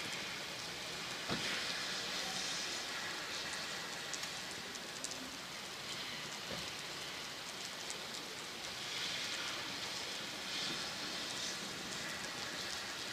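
Steady summer rain falling on a town: an even hiss of rain on roofs, roads and trees, with a few sharper drop taps, the loudest about a second in.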